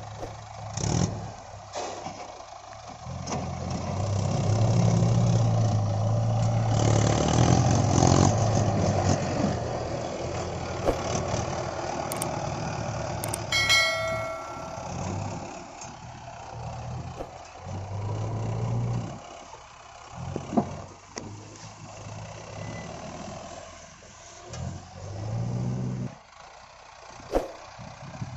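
Mahindra Arjun 555 DI tractor's diesel engine running under load as it pulls a trolley heaped with sand. It is loudest from about four to nine seconds in, then rises and falls.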